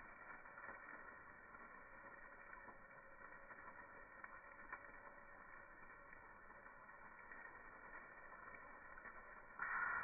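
Near silence: a faint steady hiss of background noise, with a brief louder burst of noise near the end.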